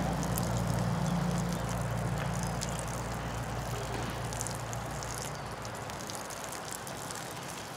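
Water being poured through a funnel into an upright length of black poly tubing, running down inside the tube and out through two thin drip lines, a leak test of the fittings. The sound is steady and slowly fades.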